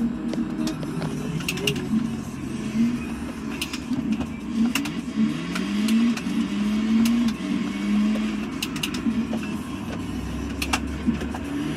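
Car engine pulling away at low speed, its pitch rising in a couple of climbs and then holding steady, with short sharp high ticks over it.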